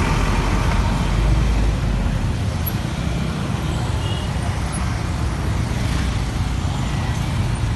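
Busy street traffic heard from a motorcycle riding slowly through it: a steady mix of motorcycle, car and bus engines with a deep low rumble, strongest in the first couple of seconds.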